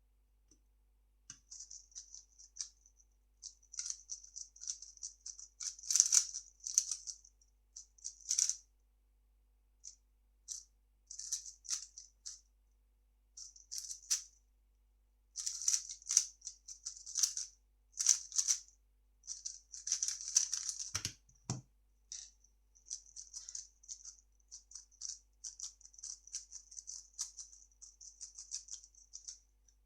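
A 3x3 speedcube's plastic layers turned rapidly by hand: streams of fast clicking and rattling in bursts with brief pauses between them, and a single low thump about 21 seconds in.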